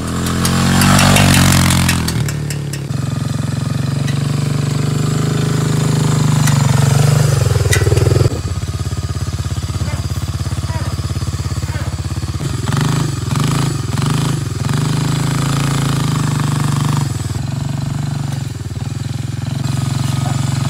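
Small gasoline engine of a homemade ride-on machine with spiked steel wheels, running hard as it churns across dirt. A rush of noise comes in the first two seconds. The engine's pitch drops about eight seconds in and goes choppy for a few seconds after the middle.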